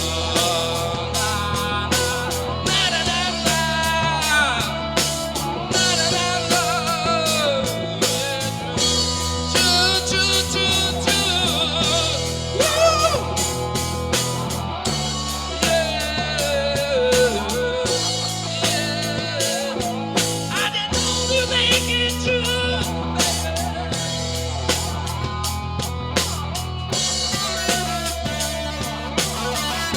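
Live rock-and-roll band playing on drum kit, bass and electric guitar, with a lead line that bends and wavers in pitch over a steady beat.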